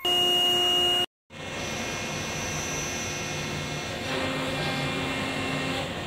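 Loud steady beeping tone for about a second, cut off abruptly. Then the steady running hum and whir of a tunnel washing machine and the laundry machinery around it.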